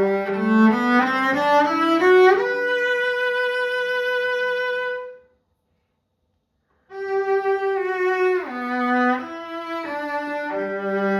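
Solo cello, a c.1850 Mirecourt instrument by Jean-Baptiste Thouvenal, played with the bow. A rising run of notes climbs to a long held high note, which breaks off about five seconds in for a second and a half of silence. The playing then resumes with a falling line of notes.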